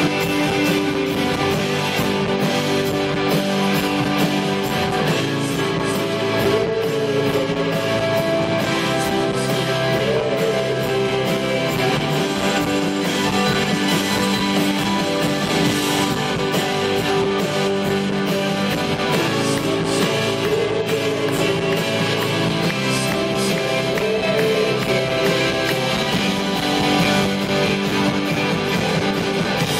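A live rock band with electric guitars plays continuously, heard from within the audience.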